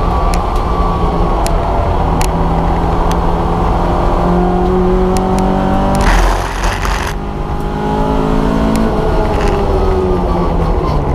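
Vauxhall Nova's engine heard from inside the stripped race-car cabin, pulling hard with the revs climbing through the first half. About six seconds in there is a brief rush of noise lasting about a second, then the revs drop and climb again near the end.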